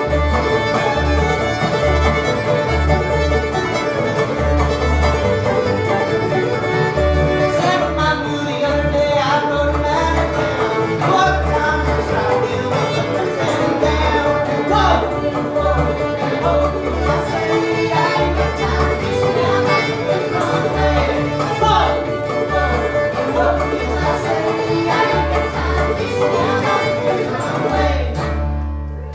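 String band playing a fiddle-led tune on fiddle, banjo, acoustic guitar and upright bass, with a steady plucked bass pulse; the tune ends together near the end.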